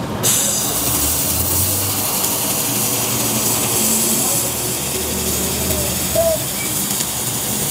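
Ronch handheld laser welder running a weld bead on steel plate: a steady hiss that switches on a fraction of a second in and holds evenly as the bead is laid.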